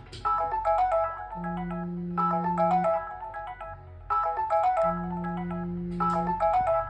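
An old Samsung mobile phone's alarm tone ringing through the phone's speaker: a looping melody of quick, short notes over a held low note, the phrase repeating about every three and a half seconds.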